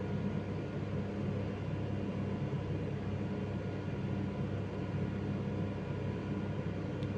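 Steady low machine hum with a faint hiss, unchanging throughout, with a tiny faint click near the end.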